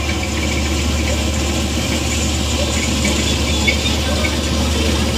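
Combine harvester running steadily as it cuts ripe paddy rice, its engine giving a constant low hum under the working machinery.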